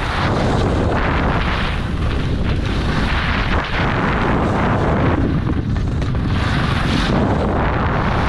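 Wind buffeting a body-worn camera's microphone as a skier runs fast down a groomed slope, a loud, steady rush that surges and eases, with the skis sliding and scraping over firm snow underneath.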